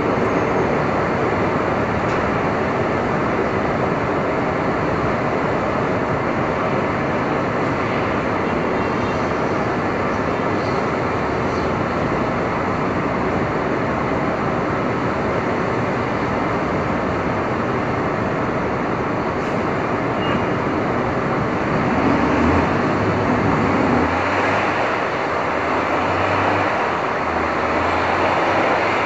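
Street traffic in Manhattan: a steady, dense wash of road noise from passing vehicles. About three-quarters of the way through, the low engine rumble of a heavy vehicle such as a bus or truck grows louder as it passes close.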